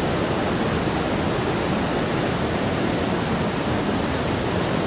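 Waterfall rushing over basalt rock: a steady, even roar of falling water.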